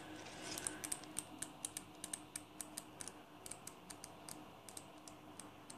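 Pages of a small paper flip book flicking off the thumb one after another, a faint run of light ticks at about five a second.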